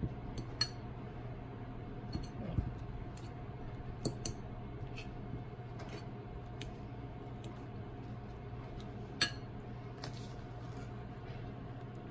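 Metal fork mashing ripe banana in a ceramic bowl: scattered clinks and taps of the fork against the bowl, one sharper clink about nine seconds in, over a steady low hum.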